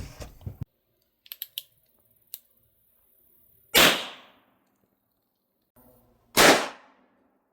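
Two .22 LR rimfire gunshots about two and a half seconds apart, each a sharp crack with a short echoing tail, preceded by a few faint clicks of gun handling.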